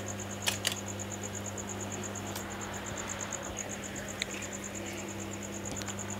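A steady, evenly pulsing high chirp, about eight pulses a second, over a low electrical hum, with two light clicks about half a second in.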